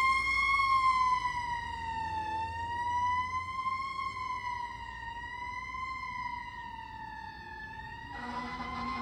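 Fire engine siren wailing, its pitch rising and falling slowly and gently as it fades into the distance. Near the end a second, lower steady tone and a hiss join in.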